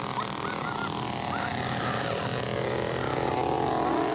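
Gasoline chainsaw running steadily, its engine buzzing with small rises in pitch.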